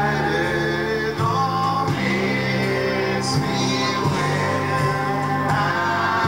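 Live band playing: acoustic guitars with several voices singing together.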